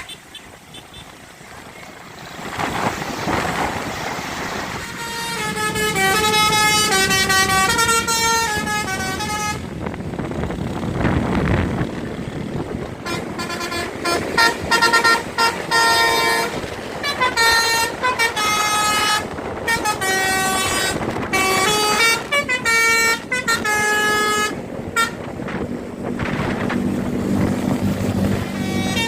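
A bus's telolet 'basuri' multi-tone air horn playing melodic runs of short notes that step up and down in pitch, sounded in several bursts over traffic noise. The rush of a passing vehicle fills the gaps between the runs, near the start and again a little before the middle.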